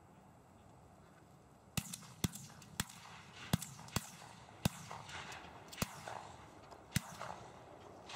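A volley of shotgun blasts at Canada geese coming into decoys: about eight shots fired at irregular spacing over about five seconds, starting a couple of seconds in.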